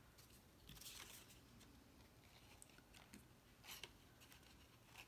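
Faint rustling and light taps of white cardstock pieces being handled and fitted together, with short rustles about a second in and again near four seconds.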